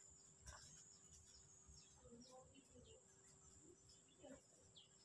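Near silence: faint outdoor ambience with a steady high-pitched insect drone and scattered faint bird chirps.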